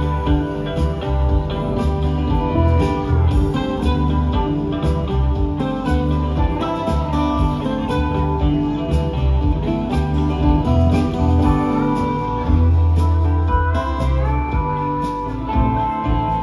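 Live country band playing an instrumental break with no singing: pedal steel guitar, electric and acoustic guitars and mandolin over bass and drums.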